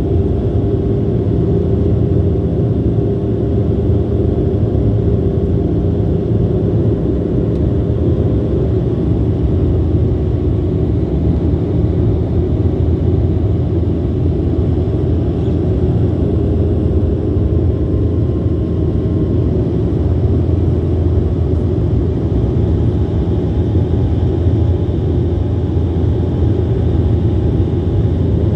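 Jet airliner cabin noise heard from a passenger seat: a loud, steady low rumble of engines and airflow with a few faint steady tones over it.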